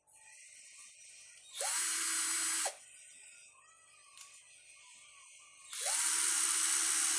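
Small battery-powered electric eraser (Minleaf ML-ED1) switched on twice, its motor whirring steadily for about a second, then again for about a second and a half.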